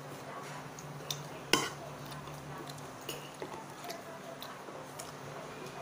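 Scattered light clicks and clinks of a spoon and hands against a plate during a meal, with one sharper clink about one and a half seconds in. A steady low hum runs underneath.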